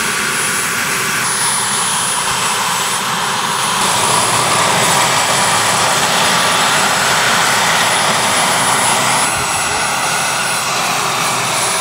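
Turbine-powered RC scale helicopter (Vario Bell 430, four-bladed main rotor) in flight: the model gas turbine runs with a steady high-pitched whine over a dense rush of rotor and exhaust noise. It grows a little louder about four seconds in and eases back slightly about nine seconds in.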